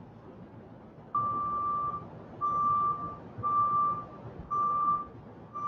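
Vehicle reversing alarm beeping on one steady pitch, about one beep a second, starting about a second in, over a faint hum of city traffic.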